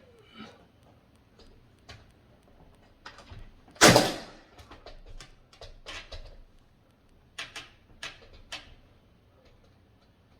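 Scattered sharp taps and clicks of wooden door stop molding being fitted to a door frame, with one loud bang about four seconds in.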